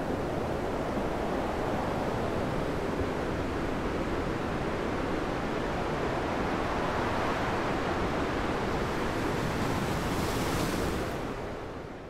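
Ocean surf: a steady wash of waves, with a brief brighter hiss near the end before it starts to fade out.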